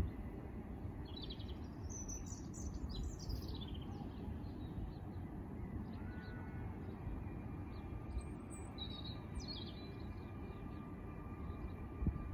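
Songbirds singing in two short bursts of high chirping notes, about a second in and again near nine seconds, over a steady low rumble.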